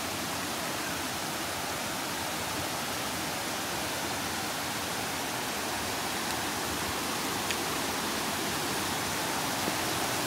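Rocky mountain brook rushing steadily over boulders and small cascades.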